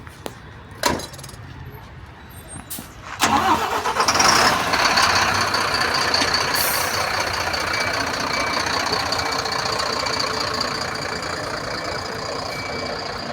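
A vehicle engine starts suddenly about three seconds in and keeps running loudly, with a steady high whine over it, easing off slightly toward the end; a few sharp clicks come before it.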